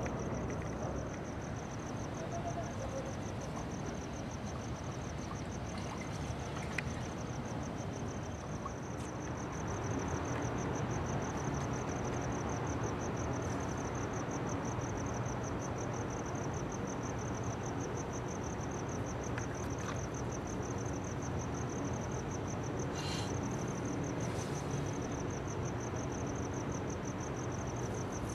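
A cricket chirping steadily in fast, evenly spaced pulses, over a low steady rumble.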